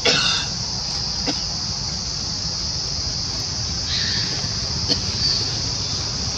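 Young macaque squealing: a short loud cry at the start and a brief rising squeak about four seconds in, over a steady high insect buzz.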